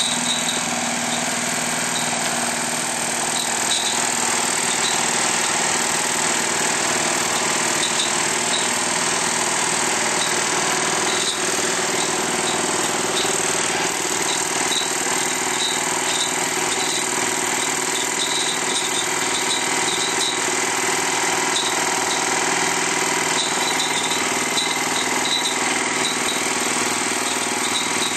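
Engine running steadily at one constant speed, with no revving or change in pitch.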